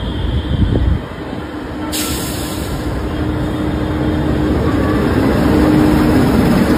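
WAP-5 electric locomotive and its passenger coaches passing close by: a steady rolling rumble with a steady hum from the train. About two seconds in, a sudden loud hiss starts and fades.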